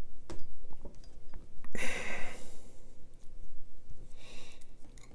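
Light clicks and taps of small steel folding-knife parts being handled and fitted together, with a breath about two seconds in and another near the end.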